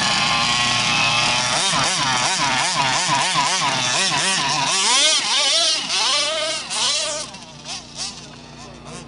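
O'Neill Brothers 50.8cc inline twin two-stroke engine, run on methanol, in an HPI Baja 5B RC buggy, revving up and down over and over as the car is driven. About seven seconds in it fades as the buggy gets farther away.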